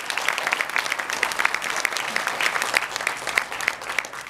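Audience applauding: many hands clapping at once, a dense patter of claps.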